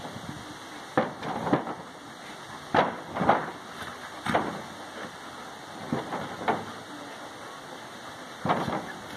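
Two dogs play-fighting, with a series of short, harsh snarls and growls, about eight in all, several coming in quick pairs.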